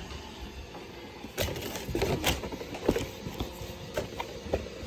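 Handling noises from unpacking a Braava mopping robot and its parts: irregular light clicks and taps, several in a few seconds.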